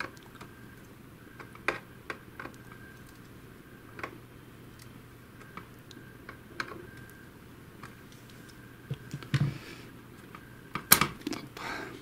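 Scattered small plastic clicks and taps as a small screwdriver and fingers work the wire connectors in a robot vacuum's plastic chassis. One sharper click comes near the end.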